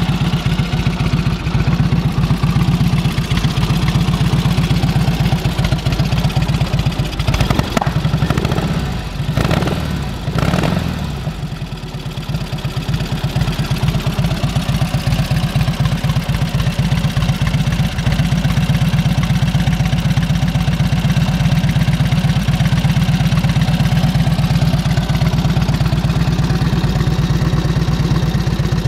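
1946 Indian Chief's flathead V-twin engine idling steadily, still warming up after a cold start, with its idle kept fast until it warms enough to slow down. It goes briefly quieter about ten seconds in.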